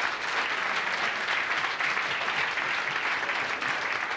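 Comedy club audience applauding a punchline: many hands clapping in a steady, dense patter.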